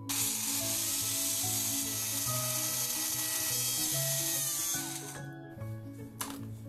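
Small electric grinder motor running for about five seconds, coarsely grinding garlic, ginger and green chillies, then stopping suddenly; a short second burst follows about a second later.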